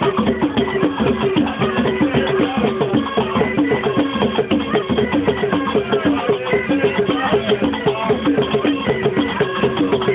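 Traditional Algerian folk music: fast, steady hand-drum percussion with a repeating melody line over it.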